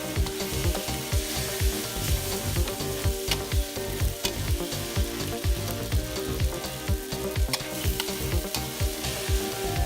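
Food frying and sizzling in a pan as it is stirred, over background music with a steady beat.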